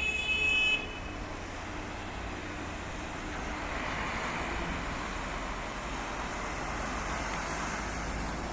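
Short horn blast from a DE 24000-class diesel locomotive that cuts off suddenly about a second in. It is followed by the steady rumble and rush of the locomotive and its ballast freight train running past.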